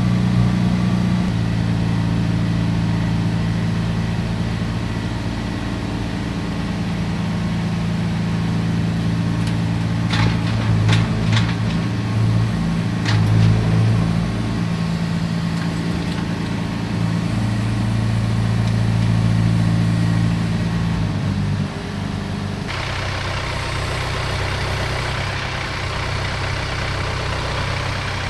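John Deere 4044M compact tractor's diesel engine running steadily, with a few sharp knocks about ten to thirteen seconds in. Near the end the engine note shifts and a hiss rises.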